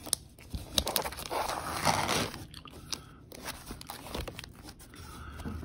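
Plastic-bagged magazines being flipped through by hand in a cardboard box: irregular crinkling of the plastic sleeves and paper, with small clicks, busiest around the second second.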